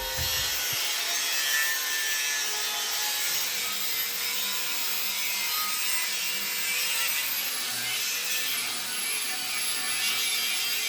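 Angle grinder with a cutting disc cutting through the steel wall of an old gas cylinder: a steady, high hissing grind with a faint motor whine that wavers slightly in pitch under load.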